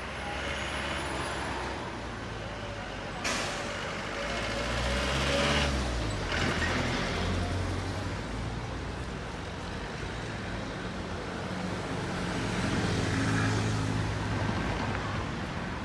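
Road traffic: the engines of passing vehicles, swelling and fading, with a sudden loud hiss about three seconds in.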